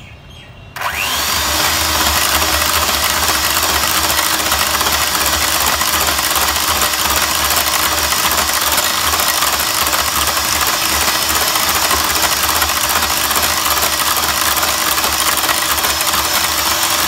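Electric hand mixer running steadily, its twin beaters whisking cake batter in a glass bowl. It switches on about a second in.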